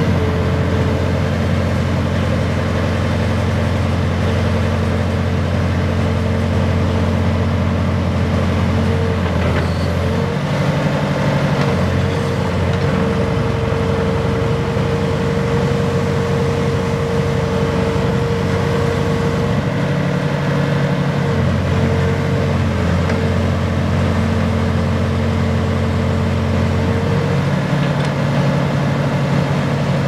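Case 580K backhoe loader's four-cylinder diesel engine running steadily while the backhoe boom is swung and raised, its note shifting several times as the load changes, with a steady whine that breaks off and returns a few times.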